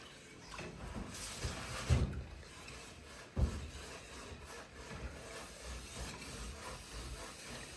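Spoon stirring and scraping along the bottom of a cooking pot to keep the food from sticking and burning, with a couple of soft knocks about two seconds and three and a half seconds in.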